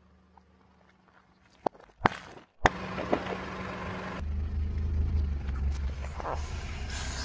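Three sharp cracks about two seconds in as small objects break under a car tyre, then the car's low steady engine and tyre rumble with a few faint crackles.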